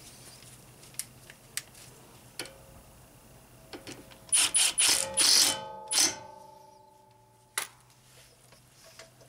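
Cordless power driver running a brake rotor's retaining screw home in about five short, loud bursts of motor whine, starting about four seconds in. Before them come a few light handling clicks, and a single sharp click follows near the end.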